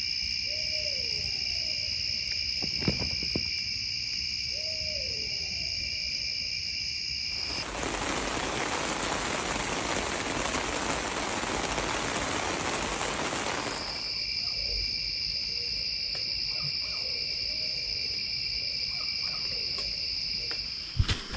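Night chorus of crickets and other insects trilling steadily, with an owl hooting low twice in the first five seconds and fainter hoots later on. About a third of the way in, a steady rushing hiss lasting about six seconds covers the insects, then stops suddenly.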